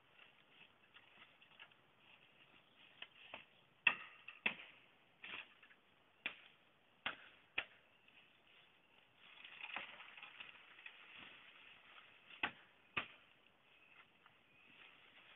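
Dry twigs snapping and leaf litter crackling as a person handles the forest floor by hand: a string of sharp, irregular snaps with a stretch of rustling just past the middle.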